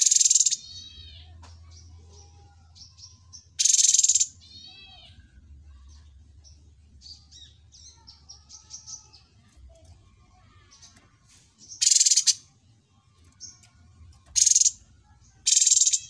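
Cucak cungkok songbird singing: five loud, harsh, rasping calls of about half a second each, with soft quick chirps and twitters in between.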